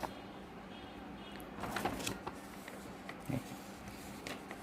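A printed quick installation guide being handled: a few scattered light paper rustles and taps over a quiet room background.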